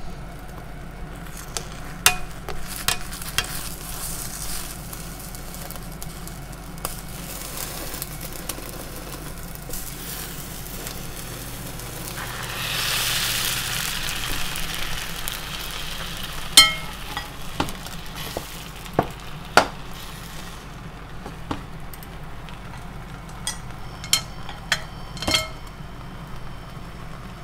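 Beaten eggs sizzling in an oiled nonstick frying pan while they are folded and rolled into a Japanese rolled omelette (tamagoyaki) with a spatula. The sizzle swells for a second or two near the middle, and sharp taps of the spatula against the pan come scattered through, several in quick succession near the end.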